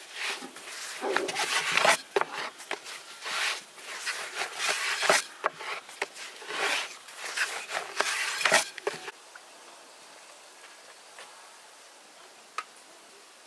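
Long thin wooden rolling pin rolled back and forth on a wooden board with a thin sheet of dough wrapped around it: irregular rubbing and knocking strokes that stop about nine seconds in. After that only faint outdoor background, with a single click near the end.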